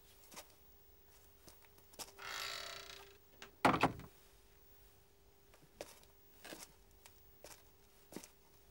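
Quiet room sounds: a soft swish about two seconds in, a single louder thump near the middle, and scattered light knocks over a faint steady hum.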